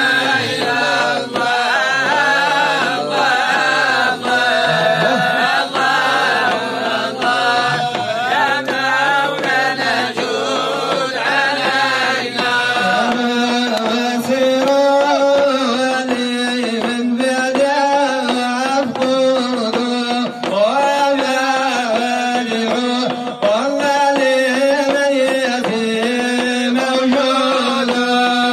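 Sufi brotherhood (fuqara) devotional chanting: a group of men sing together, led by one voice into a microphone. About halfway through, the chant settles onto a lower, steadier line.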